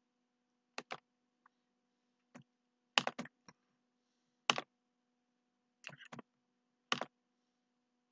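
Scattered, irregular clicks at a computer, some in quick pairs, over a faint steady electrical hum.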